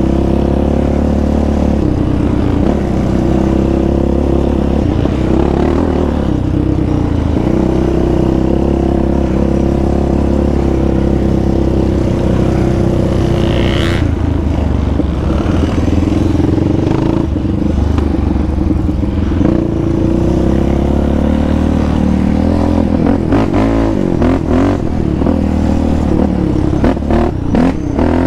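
Yamaha Raptor 700R sport quad's single-cylinder engine running under way on a dirt trail, its pitch rising and falling with the throttle. In the last few seconds there is a run of rattles and clatter as it crosses rough ground.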